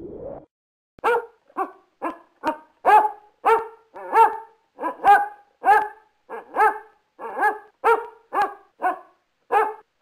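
Basset hound barking in a long, even series, about fifteen barks, close to two a second. A short rising whoosh fades out just before the barking begins.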